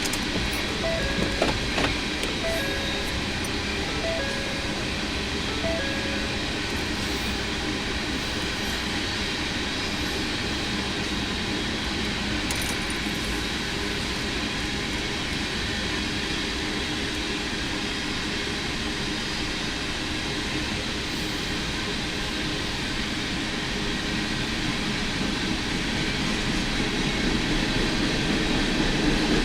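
CSX freight train rolling past, a steady rumble and rail noise from the cars going by, heard from inside a car. In the first six seconds there are four short beeps about a second and a half apart.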